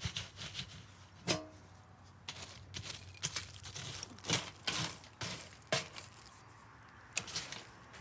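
Long metal fire tongs raking and scraping embers and charcoal against the sides of inverted metal buckets, with irregular crunches and scrapes. About a second in there is one short metallic clink with a brief ring.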